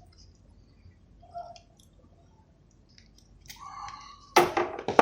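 Small clicks and scrapes of hand tools working on a circuit board, then two sharp, loud clicks near the end.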